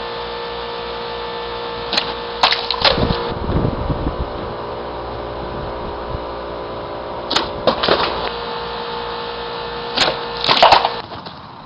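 Hanwei Tactical Katana cutting through plastic water bottles from a zero-distance start, three times: about 2 s in, about 7.5 s in and about 10 s in. Each cut is a sharp snap followed by a quick run of knocks. A steady hum runs underneath.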